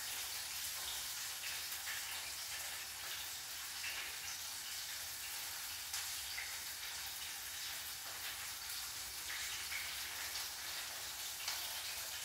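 Flour-coated chicken pieces frying in hot oil in a pot: a steady sizzle with a few small pops.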